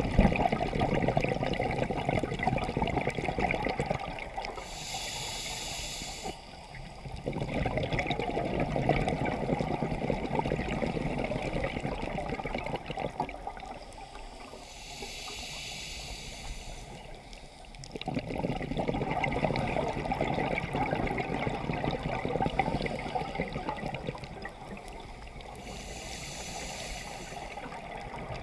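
Scuba diver breathing through a regulator underwater, about three slow breaths: each a short hiss of inhaled air followed by several seconds of gurgling exhaled bubbles.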